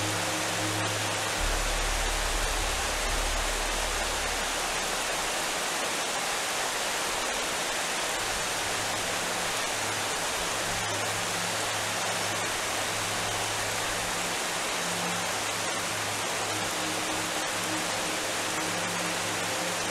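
A steady rushing hiss, like pouring water or rain, with soft background music holding low sustained notes that come and go beneath it.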